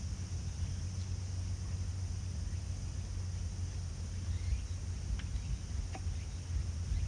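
Strong wind buffeting the microphone in a low, uneven rumble over a steady high hiss, with a few faint short chirps about two-thirds of the way in.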